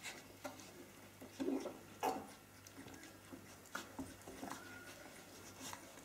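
19-day-old Australian Kelpie puppies wrestling: short puppy grunts and squeaky little vocalisations, loudest about one and a half and two seconds in, over light scuffling and ticking of paws and claws on a rug.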